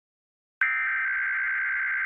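Emergency Alert System SAME data burst: after about half a second of silence, the raspy, buzzing two-tone digital screech of an alert header starts abruptly and holds steady. It is the coded burst that opens an EAS test.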